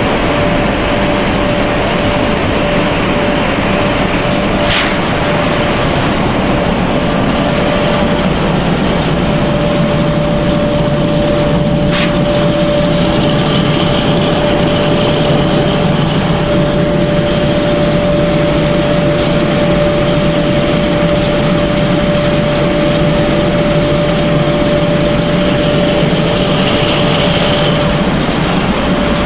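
Snack pellet production line machinery running: a loud, steady mechanical hum with a constant whine, and two sharp clicks, one about five seconds in and one about twelve seconds in.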